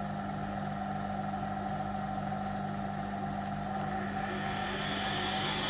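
Hotpoint Aquarius WMA58 washing machine running with a steady motor hum, then from about four seconds in a whine that climbs in pitch as the drum speeds up. The noise is a sign of worn motor bearings and worn drum bearings.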